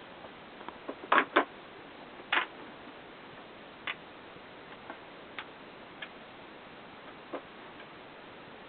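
A few sharp clicks and knocks, a close pair about a second in, another a second later, then fainter single ticks spaced a second or more apart. They sound like small handling noises, not gunshots.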